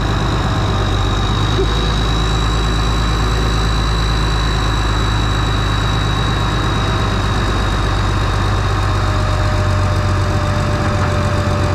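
Alvis Stalwart's turbo diesel engine running steadily, powering its Hiab crane's hydraulics. A steady high whine sits over the engine as the crane lifts a gun of around two tons, near the limit of what it can lift.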